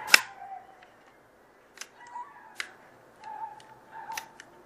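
Sharp metallic clicks of a Glock 19 frame's trigger mechanism being worked by hand to check the newly installed connector: one loud click right at the start, then several softer clicks spread through the rest. Birds chirp faintly in the background.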